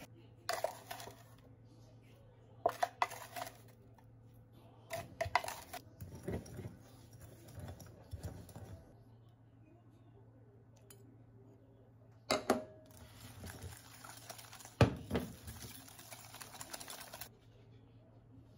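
Scattered light clicks and knocks of small hard objects being handled, over a steady low hum, with a stretch of soft hiss that cuts off near the end.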